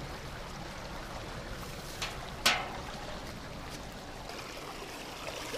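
Floodwater rushing steadily along a rain-swollen paddy-field channel, with one short sharp knock about two and a half seconds in and a fainter one half a second before it.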